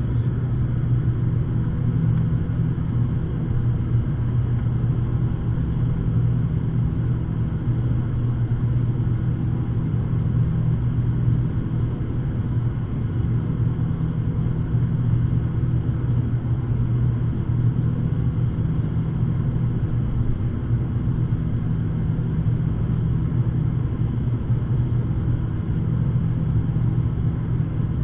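ATR 72's twin turboprop engines and propellers droning steadily during the climb after take-off, heard inside the passenger cabin: a loud, even low hum with no change in pitch.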